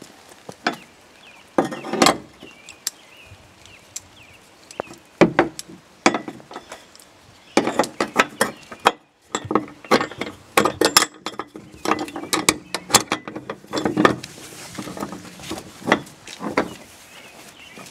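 Metal clicks, clinks and knocks of a ratchet tie-down strap's hook and hardware against a trailer's steel track rail as the strap is hooked in and worked. There is a run of rapid clicking in the middle.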